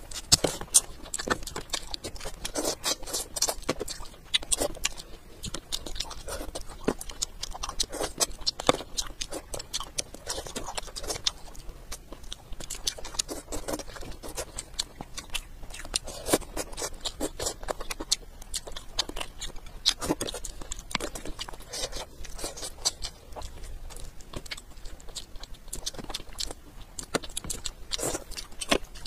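Chewing and biting into a whole sauced fish, a dense, irregular run of crunchy clicks and wet smacks.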